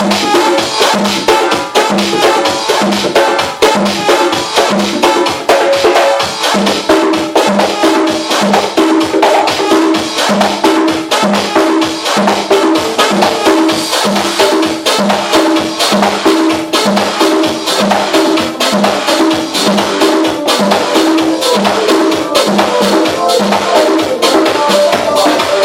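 Live hand percussion played over dance music with a steady beat, dense with quick shaker- and block-like strikes.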